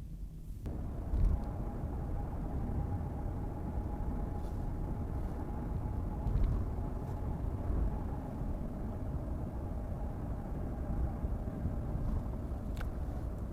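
Car driving on the road: a steady low rumble of tyres and engine with a faint steady whine, starting just under a second in.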